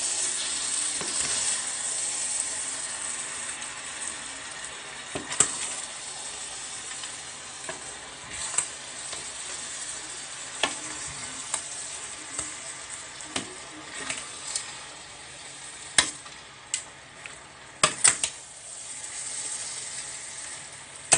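Pot of affang soup sizzling on the hob while it is stirred, with a steady hiss and sharp clinks of the metal spoon against the steel pot every second or two, several close together near the end.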